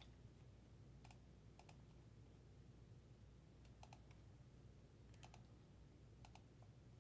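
Faint clicks at a computer, about five quick pairs of clicks spaced irregularly, over a low steady hum in an otherwise near-silent room.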